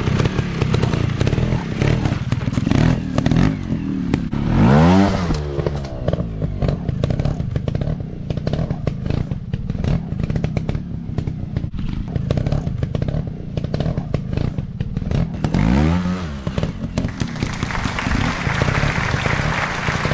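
Dirt-bike engine running over rough ground, revved up and back down twice, about five seconds in and again near sixteen seconds, with knocks and clatter throughout.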